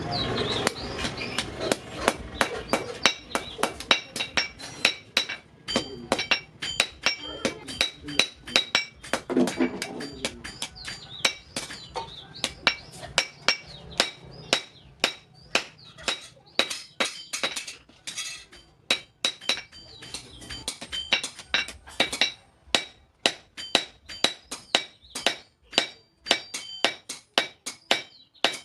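Blacksmith's hammer striking steel on an anvil, a long run of sharp ringing blows at about two to three a second, with short pauses.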